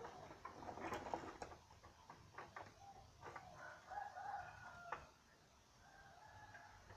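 A rooster crowing faintly, with a few scattered clicks and knocks.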